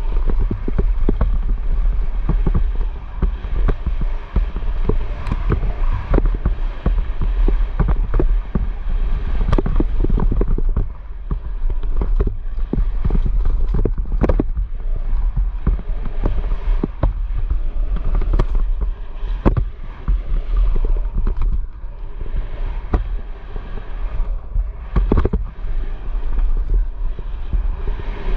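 Wind buffeting the microphone in a heavy low rumble, with many irregular knocks and clatters throughout.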